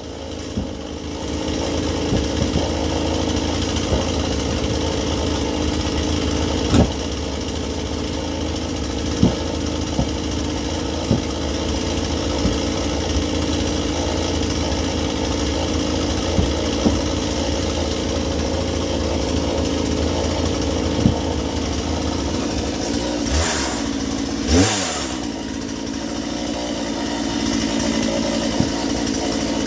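Petrol chainsaw running steadily on a log, its chain blunt and in need of sharpening, with scattered short knocks. About three-quarters through, the engine briefly surges, its pitch dipping and rising again.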